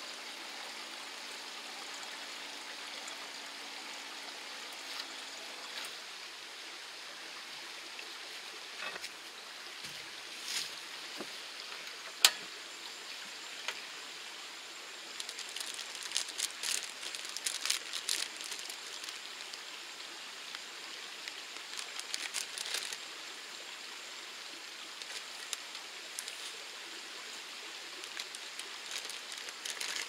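Steady rushing of a mountain stream, with a single sharp click about twelve seconds in and scattered small clicks and clatter from handling things at the table. For the first six seconds, water runs from a dispenser into a stainless steel pot, with a few steady tones.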